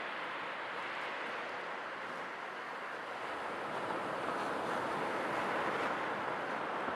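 Sea waves washing onto a shore, a continuous hiss of surf that swells a little toward a peak about six seconds in.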